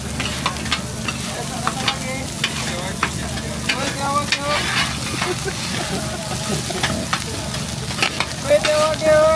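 Fried rice sizzling on a flat-top griddle while two metal spatulas scrape, chop and clack against the steel plate, tossing the rice in quick irregular strokes.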